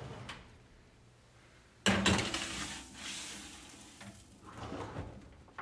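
A couple of light clicks as a kitchen oven door is lowered, then about two seconds in a loaded metal sheet pan is set onto the oven's wire rack and slid in, a sudden metallic scrape and rattle that fades over a couple of seconds, followed by a few smaller knocks.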